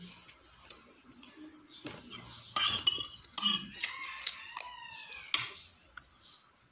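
Metal knife and fork clinking and scraping on a plate while cutting food, a handful of sharp clicks spread through. A faint high call glides down in pitch about four seconds in.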